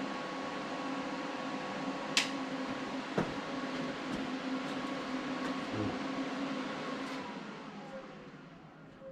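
An electric motor running with a steady hum and hiss, then winding down, its pitch sliding lower and the sound fading over the last couple of seconds. A few sharp clicks or taps fall in between.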